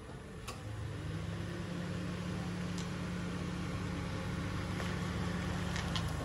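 Toyota Rush SUV's engine idling, a steady low hum.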